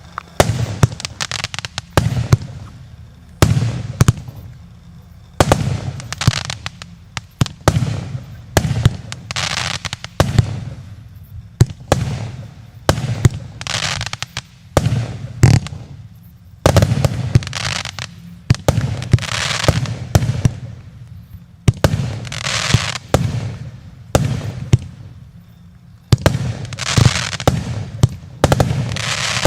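A 78-shot consumer firework battery with 0.8, 1 and 1.2 inch tubes firing: sharp bangs of shots and bursts about once a second, each followed by a hiss that fades within about a second.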